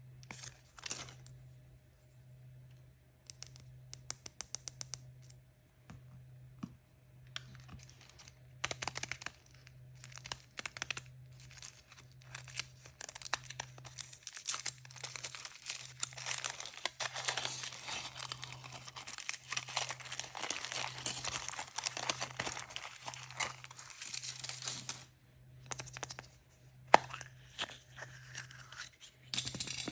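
Toy surprise packaging being torn open and crinkled by hand. There is a quick run of ticks about four seconds in, then a long stretch of tearing and crinkling, and a single sharp click near the end.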